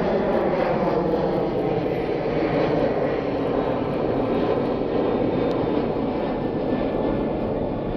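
A Boeing 737 airliner's twin jet engines at takeoff thrust as it climbs out, loud and steady, with faint engine tones slowly falling in pitch.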